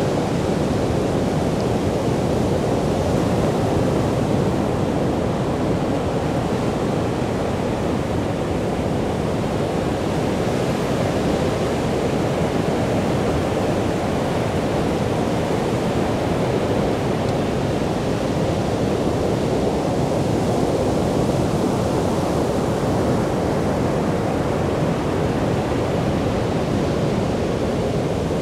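Ocean surf breaking on a sandy beach: a steady, unbroken wash of waves with no single breaker standing out.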